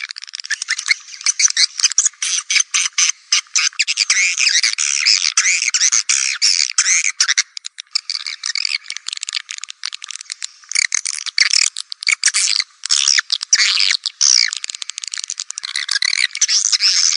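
Swiftlet call recording: many swiftlets twittering and chittering densely in fast, stop-start runs, with all low sound cut away. This is a swiftlet lure call, played to attract swiftlets to a nesting house.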